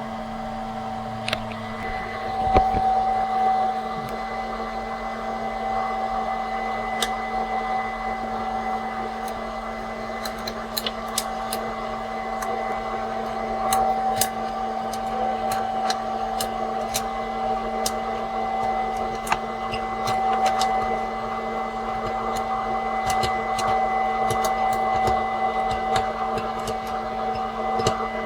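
Small electric popcorn maker running with a steady motor and fan whirr, while kernels pop in scattered sharp pops that grow more frequent from about ten seconds in.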